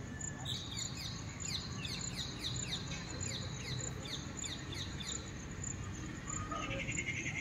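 A bird singing outdoors: a quick run of short falling whistled notes, about three a second, for some four and a half seconds, followed near the end by a brief buzzy chatter, over a steady low background noise.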